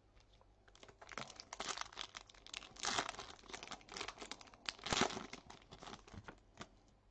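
Foil trading-card pack wrapper crinkling and tearing in a run of crackles, with two louder bursts about three and five seconds in.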